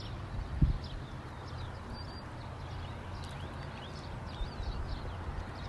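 Small birds chirping repeatedly over a steady outdoor rush of noise, with wind rumbling on the microphone and one low thump about half a second in.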